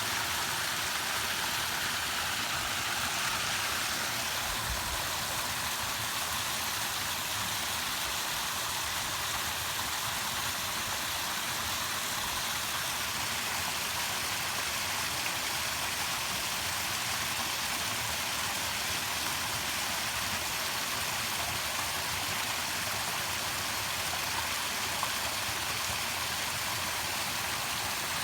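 Falling water running in a steady, unbroken rush, a hiss heavy in the upper range.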